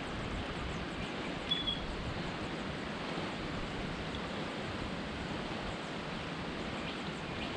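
Steady rushing of creek water running high after rain, with a brief high bird chirp about one and a half seconds in.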